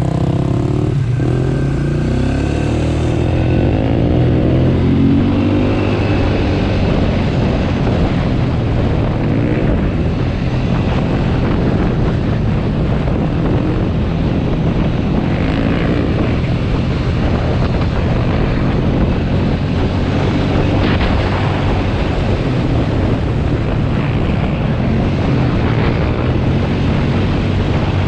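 ATV engine running under way with a steady drone and a rough rushing noise of the ride over it. Its pitch shifts in the first few seconds, then holds steady.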